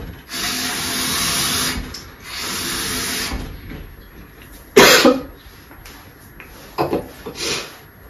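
A woman fake-coughing up blood: two long, harsh, rasping hacks in the first three seconds, then one sharp loud cough just before the middle, and two shorter coughs near the end.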